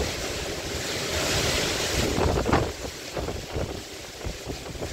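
Storm wind gusting through the trees, a loud rushing hiss that eases after about two seconds into uneven gusts, with the wind buffeting the phone's microphone.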